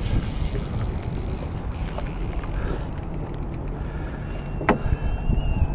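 Wind buffeting the camera microphone with an uneven rumble, with a hiss in the first few seconds. A single sharp knock comes near the end, along with a faint high wavering whine.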